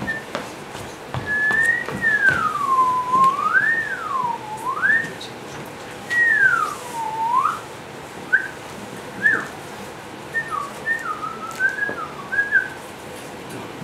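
A person whistling with the lips: long smooth glides swooping down and back up, followed by a series of short chirping notes in the second half.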